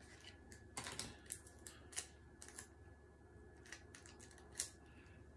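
Adhesive tape being handled and torn from a small roll: faint, scattered clicks and crinkles, about a dozen over several seconds.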